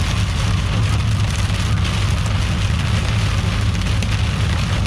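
Rain and light hail pattering steadily on the truck, heard from inside the cab over a steady low rumble.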